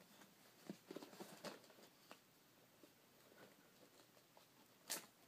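Faint taps and scrapes of fingers on a cardboard box and a tablet as the tablet is lifted out of its box, with one sharper click about five seconds in.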